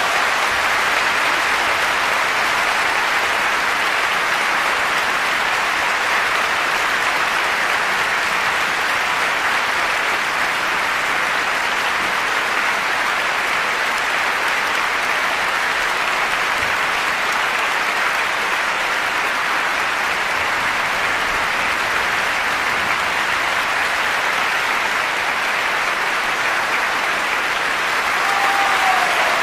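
Concert hall audience applauding steadily and densely at the end of an orchestral symphony performance.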